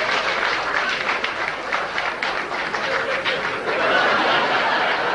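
Theatre audience laughing and clapping, swelling a little near the end.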